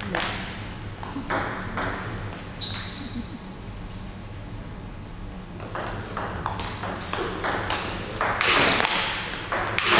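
Table tennis ball clicking off the table and bats: a few scattered hits, a pause, then a quick rally from about six seconds in, with short high squeaks on the hall floor during the rally.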